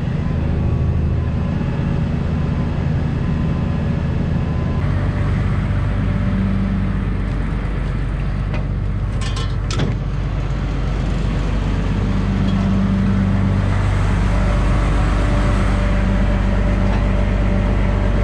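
Engine of farm machinery running steadily, its note changing about five seconds in, with a few short clicks around nine to ten seconds in.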